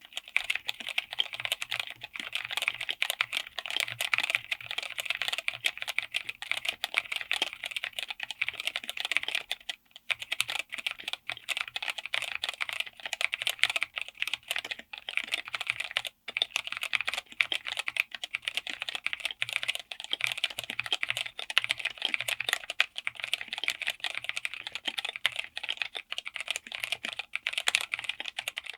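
Fast, continuous typing on a mechanical keyboard: a dense stream of keystroke clacks, with brief pauses about ten and sixteen seconds in.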